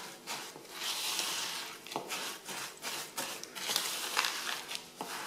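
Silicone spatula stirring and scraping a crumbly mix of broken biscuits and melted chocolate around a plastic bowl, in short irregular strokes.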